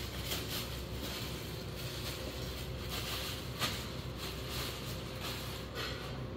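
Thin plastic wrapping crinkling and rustling in irregular bursts as it is pulled off the metal parts of a light fixture, over a steady low hum.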